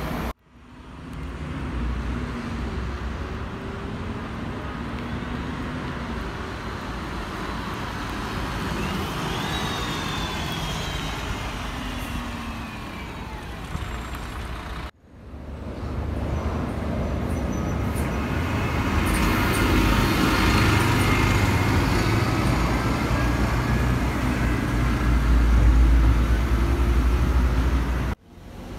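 Road traffic with city buses passing. A Temsa Avenue LF low-floor bus drives off with a few high gliding squeaks about ten seconds in. Then, after a cut, cars pass and a bus approaches, its low rumble growing louder toward the end.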